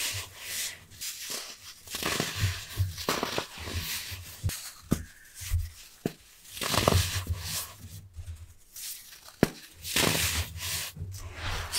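Reformed baking soda crunching and crumbling as hands squeeze it to powder, a sandy, crispy sound in uneven handfuls with short pauses between. A few sharp clicks come as small pieces snap.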